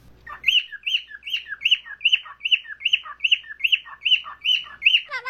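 Parrot giving a rapid run of short, repeated chirping calls, about a dozen, roughly three a second.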